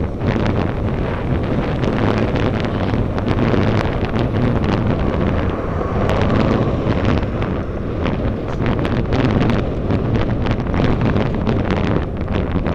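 Heavy wind buffeting on the microphone of a camera carried on a moving road bicycle: a constant low rumble with crackling gusts throughout.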